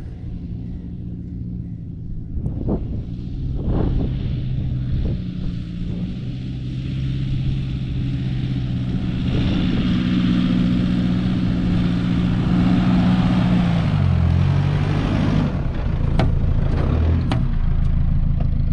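Four-wheel drive's engine running steadily while driving a sandy track, its pitch dropping about fourteen seconds in, with a few sharp knocks.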